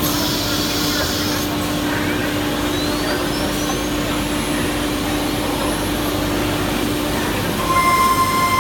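CNC router machinery running with a steady hum and noise, while a faint whine rises in pitch over several seconds. Near the end a louder, steady high tone sets in.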